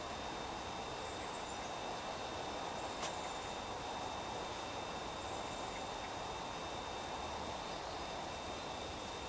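Steady rural outdoor ambience: an even hiss with a faint steady high whine, and faint high ticks about every second and a half, one a little stronger about three seconds in.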